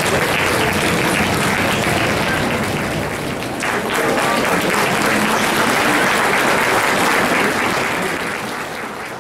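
Crowd applauding: dense, steady clapping that dips briefly about three and a half seconds in, then fades near the end.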